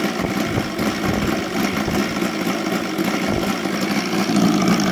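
OS Sirius 7 FR7-420 seven-cylinder radial model aircraft engine, converted to gasoline with CDI ignition, idling steadily at around 1,000 to 1,200 rpm after a burst of throttle. It grows a little louder near the end.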